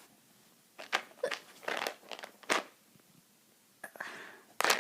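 Short rustling and scuffing sounds close to the microphone, about six in a few seconds, the loudest near the end, as a small terrier nuzzles and pushes against the hand holding the phone.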